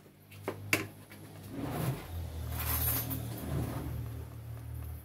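A wooden spoon stirring thick, cooked natilla in a nonstick pot, which has thickened to the point of being done: two sharp knocks of the spoon on the pot about half a second in, then some three seconds of scraping and squelching through the stiff paste over a low steady hum.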